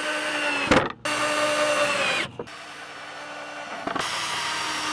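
Power drill driving screws into wood, its motor whining in several short runs. The pitch sags near the end of the second run as a screw seats.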